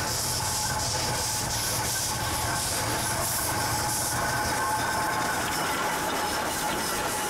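Climax geared steam locomotive and NA-class steam locomotive 8A double-heading a train past at low speed: hissing steam over an even beat of exhaust chuffs, with the low rumble of the running train.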